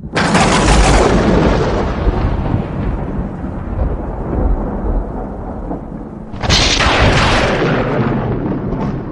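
Huge outdoor festival sound system blasting thunder-like booms with heavy bass: a sudden crash right at the start that rumbles away, then a second crash about six seconds in.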